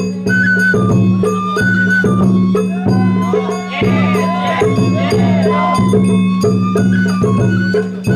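Sawara-bayashi festival music played on a parade float: a bamboo flute stepping through a melody over a steady beat of drums and a jangling hand gong. In the middle the flute drops out for a couple of seconds while several voices call out over the beat.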